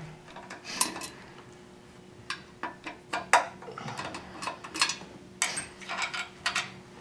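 Irregular light metallic clicks and clinks from a small hand ratchet with an Allen bit backing out the volute bolts on a Goulds NPE centrifugal pump, several a second at times.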